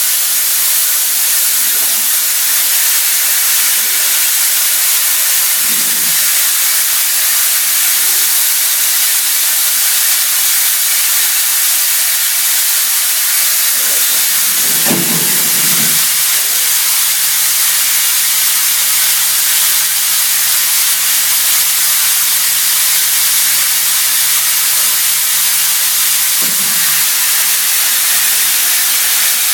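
CNC milling of aluminium silicon carbide with a CVD diamond end mill under flood coolant: a steady, loud hiss of coolant spray and cutting. A low steady hum joins about halfway through and stops near the end.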